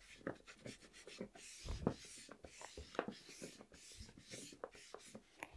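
Faint, irregular rubbing strokes with light clicks and knocks as India ink is worked onto small wooden pieces, with a heavier knock about two seconds in.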